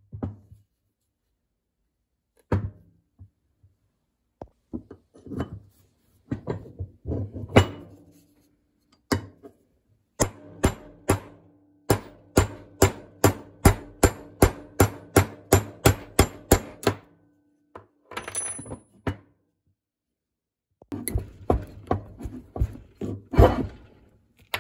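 Hammer striking a steel pin punch to drive a pin out of a rusty Ridgid pipe wrench. A few scattered blows at first, then a steady run of about two to three blows a second with a metallic ring under them, and a further cluster of blows near the end.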